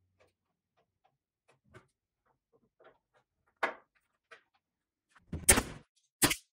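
A painted wooden drawer being handled in a dresser: faint taps and scrapes, a knock, then a louder cluster of bumps about five and a half seconds in and a sharp knock just after.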